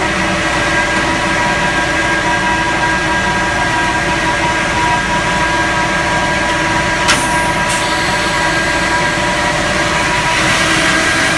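Fuel truck's engine driving its PTO fuel pump, running steadily during pumping with a steady whine over the engine noise. Two short clicks come about seven seconds in.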